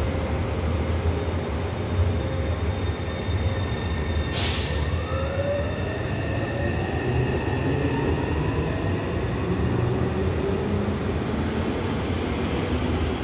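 Taipei Metro C301 electric multiple unit departing the platform: a short hiss about four seconds in, then a whine rising in pitch as the train accelerates away over a steady low running rumble.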